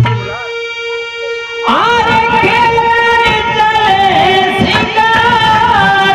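Harmonium holding steady notes, joined about two seconds in by a man singing a long, wavering devotional melody into a microphone over it.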